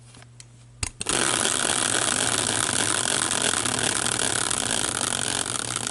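Spun prize wheel: its flapper clicks against the pegs in a fast, dense rattle that starts with a sharp click about a second in.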